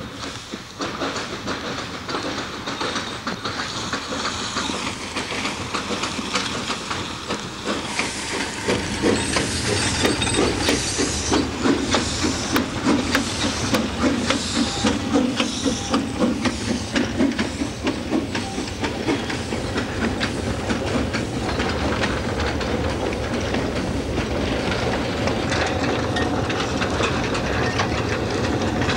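Narrow-gauge train running, with a hiss and a rhythmic clatter. The clatter grows louder about eight seconds in, beating about twice a second, then eases into a steadier running noise.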